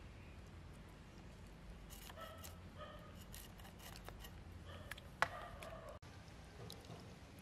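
Faint clicks and scrapes of a knife being worked over small fish, scaling and cleaning them by hand, with one sharp click about five seconds in.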